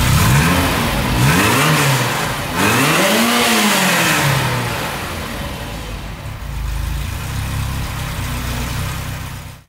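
1982 Ferrari 308 GTSi's 3-litre V8 heard at its quad exhaust tips, revved three times, the third rev the highest and longest. It then settles back to a steady idle.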